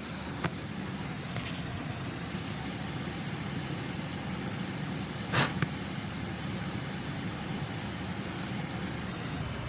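Gas furnace running after a call for heat, a steady low hum, with a faint click about half a second in and a sharper click a few seconds later.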